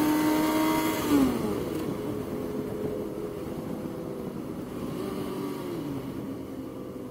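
Motorcycle engine running at highway speed, with wind rushing over the helmet microphone. The engine note drops about a second in as the throttle is rolled off, then runs steadily and slowly gets quieter, dipping again near the end.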